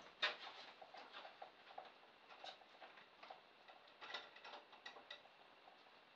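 Faint scattered clicks and taps from hands handling a small foam-hulled model boat and refitting its plastic jet-outlet tube, with one sharper click just after the start and a short cluster of ticks about four seconds in.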